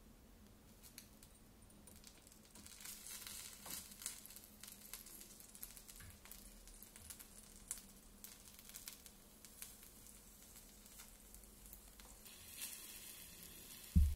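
Butter and beech mushrooms sizzling in hot oil in a tiny miniature frying pan: a faint crackling fizz that starts about three seconds in, dotted with small clicks of a spoon. There is a single sharper knock near the end.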